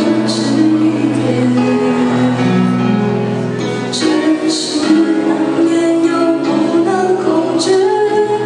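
A girl singing into a handheld microphone over a backing track of held instrumental notes, with a few short cymbal-like hits.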